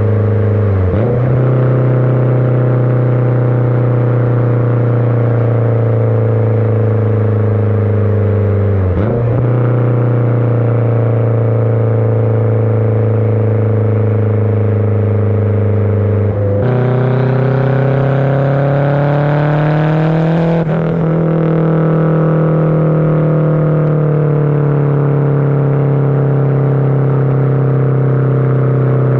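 Exhaust of a turbocharged K20 four-cylinder in an Acura RSX Type S, heard right at the tailpipe while driving: a loud, steady exhaust note. Its pitch dips briefly about a second in and again about nine seconds in; past halfway it steps up and rises for a few seconds, then drops and eases back down.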